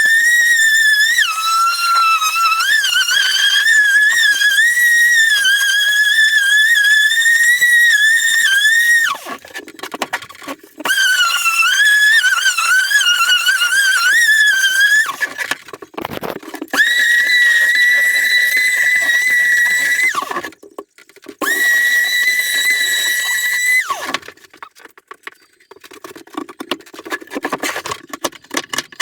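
Electric sander motor whining in several runs of a few seconds, switched on and off abruptly. In the first long run the pitch dips and wavers as it is pressed into the wood; in the later, shorter runs the pitch holds steady. A rougher, lower scraping noise comes between runs.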